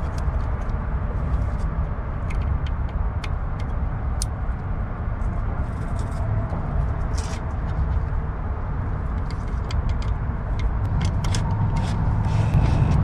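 Scattered small clicks and taps as wiring connectors are handled and pushed onto a starter motor, over a steady low rumble.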